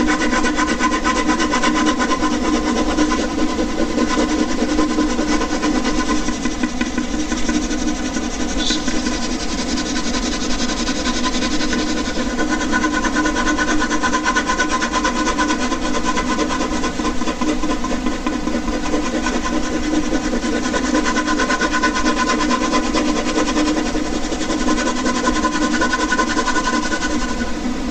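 Air conditioner running: a steady mechanical hum with several held tones over an even whir.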